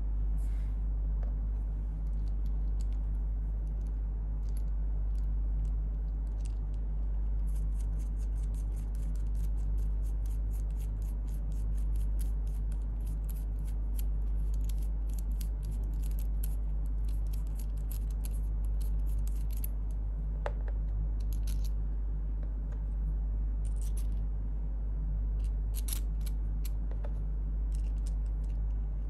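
Small metal parts of a ligature booster being handled and screwed onto the ligature: faint rapid clicking and scratching, thickest from about a quarter of the way in to two-thirds, with another cluster near the end. Under it runs a steady low hum.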